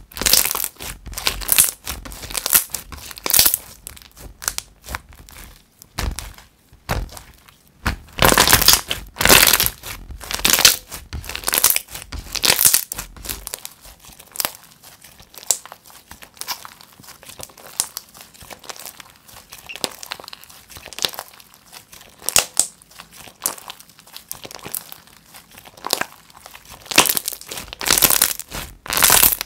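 White, fluffy slime with small clay bits being pressed, stretched and squeezed by hand, giving a dense run of small crackles and sticky pops. The sounds come in clusters, loudest while it is pulled and squished.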